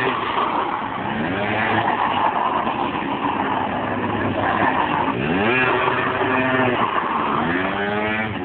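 Small motor scooter engines revving hard while a rear tyre spins on the asphalt in a burnout. The engine pitch climbs sharply twice, about five seconds in and again near the end.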